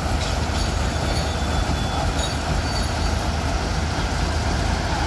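Heavy wrecker crane truck's diesel engine running steadily and loud, powering the crane and winch as it hauls on the cable. A few brief high metallic squeaks come through in the first few seconds.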